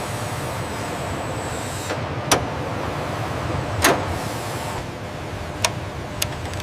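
Steady low mechanical hum with a few sharp clicks and knocks, the strongest about two and four seconds in, the second with a short ring.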